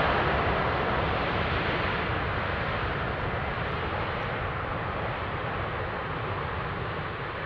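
Jet airliner's engines, a steady rush that slowly fades as the aircraft moves away.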